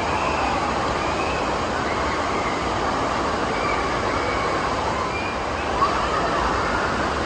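Water rushing steadily out of a water-slide tunnel into a shallow splash-down runout, with faint voices in the background.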